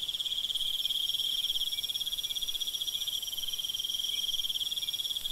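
Cricket trilling, a steady high-pitched pulsing trill.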